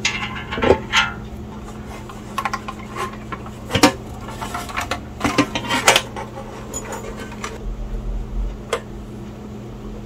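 Kaypro II keyboard's sheet-metal housing being handled and fitted back together: scattered metallic clanks and knocks, the loudest about 4 and 6 seconds in.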